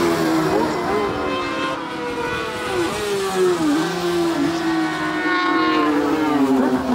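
Several racing sidecar outfits' engines screaming along at high revs, more than one pitch at once, dipping and rising through the middle as the riders work the throttle and gears.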